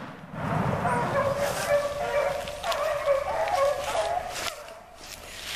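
A pack of rabbit hounds baying on a running rabbit's trail. Several voices overlap in long, wavering cries that fade near the end.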